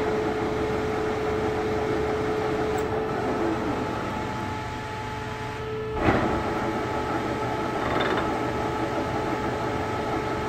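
Vanguard CW61 40-by-80-inch engine lathe running with a steady machine hum and a held whine. About six seconds in, as a button on the headstock control panel is pressed, there is a sharp clunk and the running tone changes pitch.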